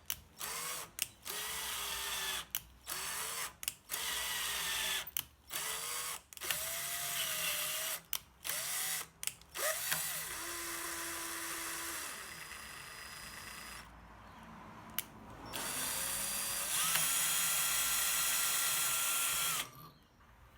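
Power drill drilling holes into a grinder drive pulley in a string of short runs with abrupt cuts between them, many starting with a rising whine as the motor spins up. Near the end comes a longer, steadier run with a higher whine.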